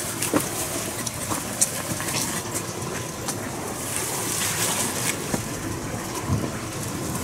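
Asian small-clawed otters digging and rummaging in dry soil and fallen leaves: a steady rustle with scattered small crackles and clicks.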